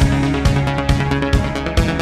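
Electronic music with a steady kick drum about twice a second under sustained synth chords.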